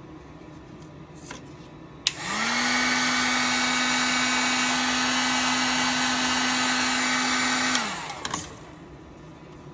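Heat gun switched on with a click about two seconds in, its fan motor rising to a steady whine and blowing hot air for about five seconds, then switched off and winding down. It is shrinking heat-shrink tubing over a soldered wire connector.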